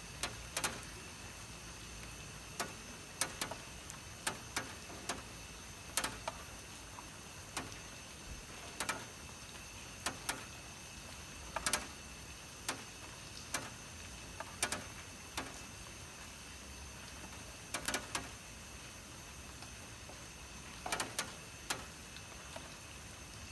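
Rain on a roof: a steady hiss with drops tapping sharply at irregular moments, sometimes two or three in quick succession.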